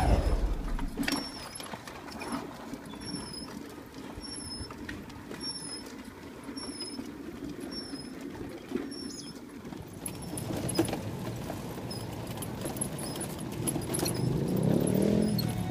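Pedal-powered tricycle (pedicab) rolling along a concrete road, with steady wheel and road noise and faint high squeaks repeating every second or so. Near the end a deeper sound comes in that rises and falls in pitch.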